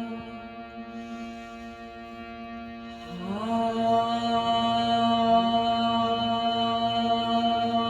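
Voices chanting the Chinese-medicine heart sound 'Ha' as a long held tone. About three seconds in, a fresh breath of chanting slides up into the same pitch and swells louder.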